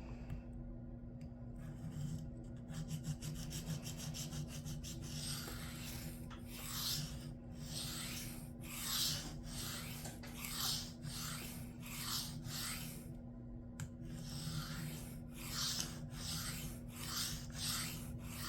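Knife blade being stroked across a coarse diamond sharpening plate, a gritty rasping stroke repeated about once or twice a second, growing stronger about five seconds in. The blade is S110V steel being given a new convex edge.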